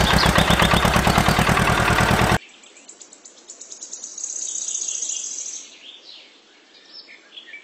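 A loud, fast rhythmic sound cuts off abruptly about two seconds in. Quiet ambience follows: a steady high insect-like trill for a second or two, then birds chirping near the end.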